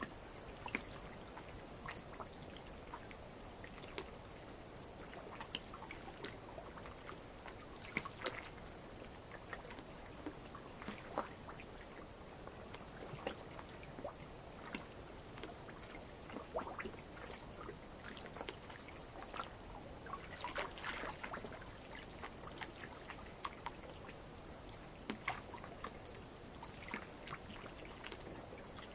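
A steady high-pitched chorus of night insects over light waves lapping and trickling on lava rock, with irregular small splashes and clicks.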